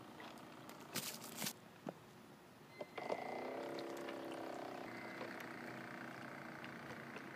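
Small electric motor of a homemade RC boat whining as it drives the propeller. It comes in about three seconds in with a quick rise in pitch, then holds steady and fades slightly. The builder says the motor is overloaded. A few clicks and a brief rustle come before it.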